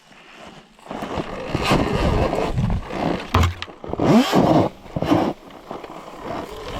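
Surron Ultra Bee electric dirt bike being ridden off-road: rough tyre, trail and wind noise starts about a second in, with a short rising motor whine about four seconds in.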